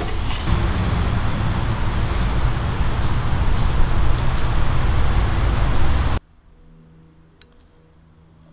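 Steady loud outdoor background noise, a low rumble with hiss, with a high pulsing buzz above it. It cuts off abruptly about six seconds in, leaving only faint steady tones.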